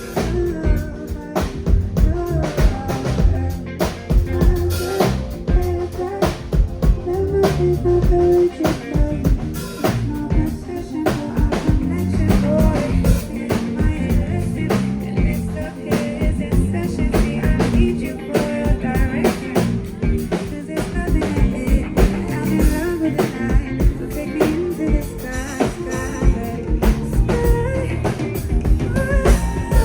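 A live band playing at a sound check, with a drum kit keeping a steady beat over bass and other instruments.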